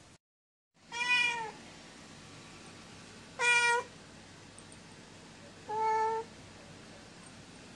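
Domestic cat meowing three times, short calls a couple of seconds apart, the first bending up and down in pitch.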